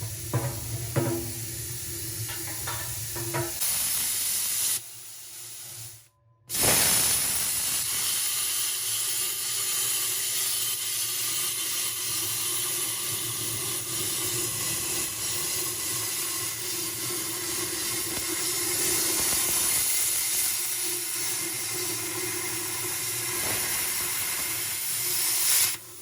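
Plasma cutter cutting the steel furnace shell: a steady, loud hiss of the arc and its air stream. It starts after a brief gap a few seconds in and cuts off abruptly just before the end. Short plucked background music is heard at the start.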